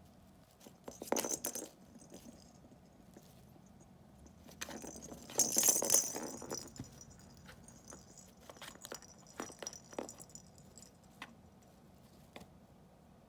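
Kitten batting at toys inside a hunting box: two bursts of rattling, one about a second in and a longer, louder one around five to seven seconds in, with scattered light taps and clicks between.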